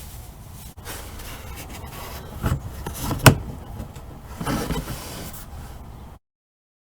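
Low rubbing and scraping handling noise, with a knock about two and a half seconds in and a sharp click a little after three seconds; the sound cuts off abruptly near the end.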